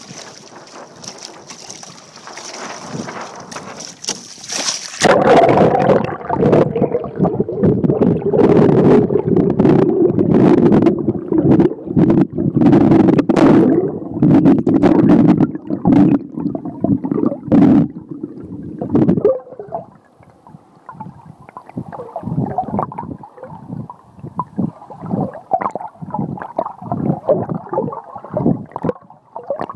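Wind on the microphone for the first few seconds. About five seconds in, the camera goes under the sea surface, and the sound turns to a loud, muffled rush of water flowing past the camera, with gurgling and many sharp clicks and knocks. It grows quieter near twenty seconds in, leaving scattered clicks and pops.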